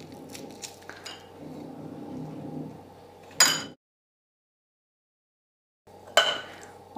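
Soft kitchen handling sounds of stuffing spice mix into slit green chillies: light taps and scrapes of a metal spoon on a plate, with a sharp clink about three and a half seconds in. The sound then drops out completely for about two seconds before another clink near the end, as the chillies go into a glass jar.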